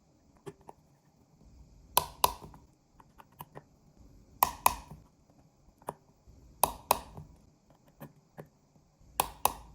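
Torque screwdriver's clutch clicking out as the small screws on an iPhone's bottom speaker reach their set torque: four sharp double clicks, roughly two seconds apart, with faint small clicks in between.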